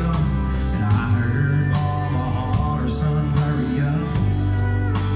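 Live country band playing: electric guitar, bass guitar and a drum kit keeping a steady beat.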